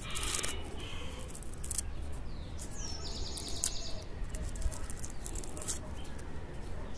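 Light crackles and snaps of fingers peeling dry leaves and offsets from an Echeveria elegans stem. About three seconds in a bird calls once: a falling whistle running into a quick trill.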